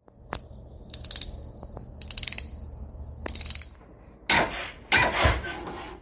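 Intro sound effect: three short bursts of rapid crackling clicks about a second apart, then two louder, fuller bursts of noise a little after four seconds in.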